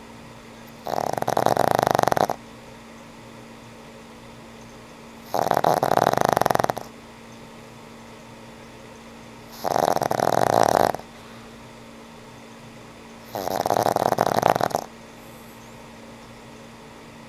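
An old pug snoring in its sleep: four long snores, each about a second and a half, coming steadily about every four seconds.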